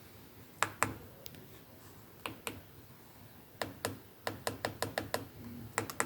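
Sharp plastic clicks from the buttons of a Maxcom phone being pressed, about fifteen presses at an uneven pace with a quick run of presses in the second half.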